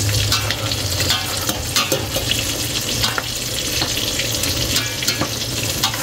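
Shrimp frying in hot oil, a steady sizzle full of small crackles, with a spatula gently pushing taro leaves around a stainless-steel pot.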